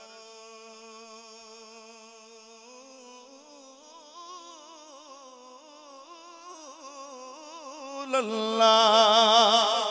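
A male devotional reciter's solo voice, with no accompaniment, holding one long sung note of a naat, ornamented with wavering vibrato. It climbs in pitch about three seconds in and swells much louder and higher about eight seconds in.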